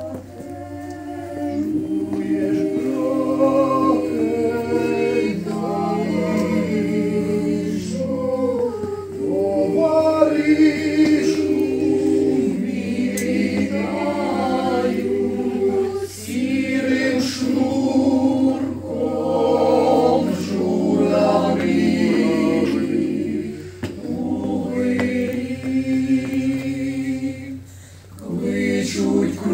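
Ukrainian mixed choir of women's and men's voices singing a cappella in several parts. The phrases are sung in held chords with short breaks between them.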